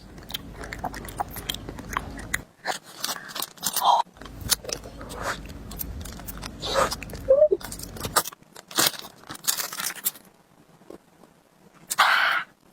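Close-up biting and chewing of crunchy food, with many sharp, irregular crunches and crackles. There is a short, louder burst of noise near the end.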